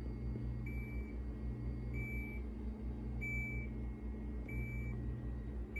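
An electronic beeper sounding five short high beeps, about one every 1.3 seconds, over a steady electrical hum.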